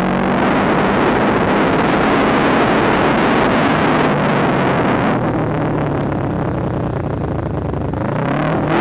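Motorcycle engine running under way, mixed with heavy wind and road noise. The noise eases a little about halfway through, and the engine pitch rises near the end as it picks up speed.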